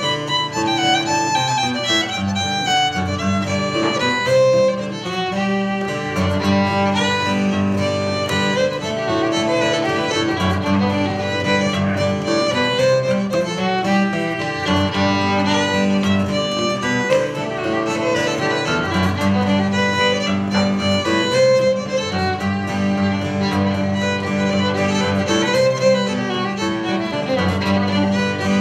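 Fiddle and acoustic guitar playing an old-time tune: the fiddle carries the melody in quick bowed notes over guitar accompaniment.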